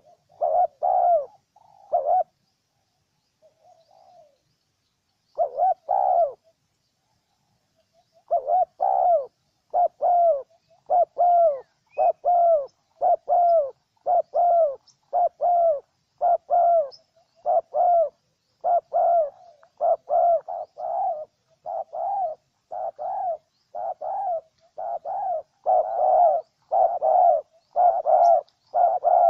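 Spotted dove cooing: short, low coo notes repeated in quick succession. They break off for several seconds early on, then run on steadily at about two notes a second.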